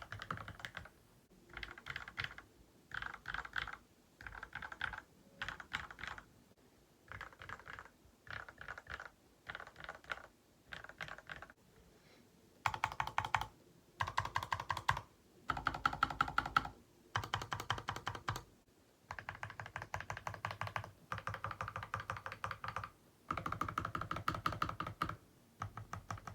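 LK67 mechanical keyboard with Gateron KS-3 Milky Yellow Pro linear switches and 9009-style keycaps typed on in short runs with pauses: first the stock board, then the modded one with lubed switches, tape mod and clay-and-polyfill-filled case. About halfway, louder, deeper runs of presses on the stabilized keys begin, stock stabilizers first, then clipped and lubed Durock V2 stabilizers with a clay-filled spacebar.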